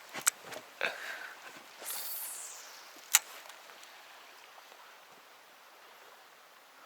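A cast with a spinning rod: a few handling clicks, then a falling whoosh about two seconds in as the spoon lure and line fly out, and one sharp click about a second later.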